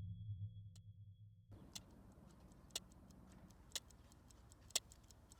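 A low droning ambient music bed cuts off abruptly about a second and a half in, giving way to a clock ticking steadily about once a second.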